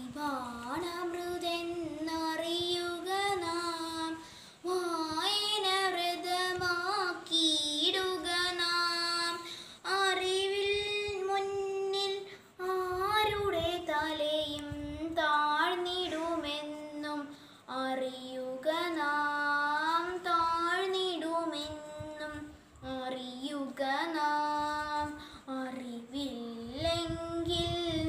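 A young girl singing solo and unaccompanied, holding and bending long melodic notes in phrases of a few seconds, with short pauses for breath between them.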